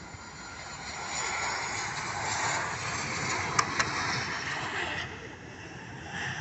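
Airliner passing by: its engine noise swells about a second in, holds for a few seconds and falls away near the five-second mark. Two sharp clicks come in the middle.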